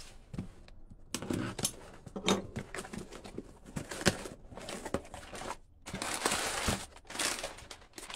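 Crumpled brown kraft packing paper rustling and crinkling as it is pulled out of a cardboard box, in irregular bursts with sharp handling knocks and clicks; the sharpest knock comes about four seconds in and the densest crinkling about six seconds in.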